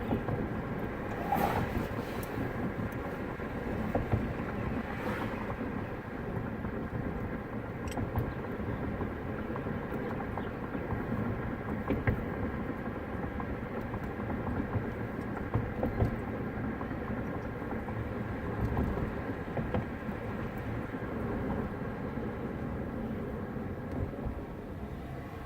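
Steady road and engine noise heard from inside a moving car's cabin, with a few brief knocks or clicks scattered through it.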